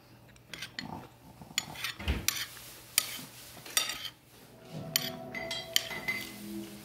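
Fork and utensils clinking and scraping against a dinner plate while eating: a string of sharp taps, with a dull thump about two seconds in.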